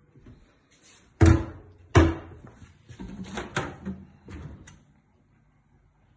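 Cookware and kitchen fittings being handled: two loud knocks about a second apart, then several lighter clatters.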